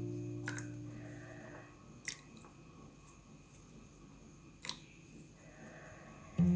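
Background acoustic guitar music dying away, then a quiet stretch with three faint sharp clicks, and the guitar music coming back in loudly near the end.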